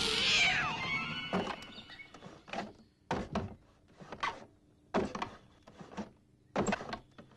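A string of short thunks, about ten at irregular spacing, over faint music; the ring of a loud hit dies away in the first second or so.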